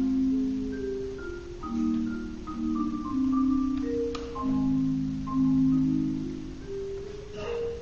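Solo marimba playing slow chords in the low register, each chord held for a second or more and swelling and fading in loudness.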